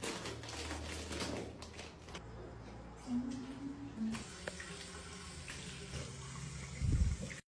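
Water running from a bathroom tap into a sink as hands are washed under it, a steady splashing hiss, with a low thump near the end.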